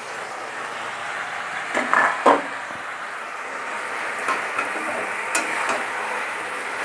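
Fish-head and spinach mix sizzling in a steel kadai as a metal spatula stirs it, with a couple of louder spatula scrapes about two seconds in and a few light clicks of the spatula against the pan.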